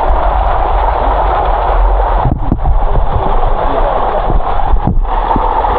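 Rushing water of a waterfall flowing close to the microphone, a loud steady rush, with low wind buffeting and knocks on the microphone underneath. The rush drops out for a moment twice, about halfway through and again near the end.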